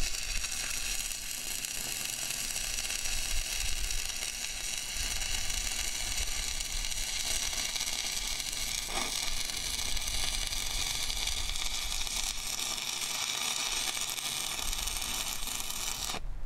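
Electric arc welder running one continuous bead: a steady crackling sizzle, which is the full seam being laid after two tack welds. The arc cuts off suddenly near the end.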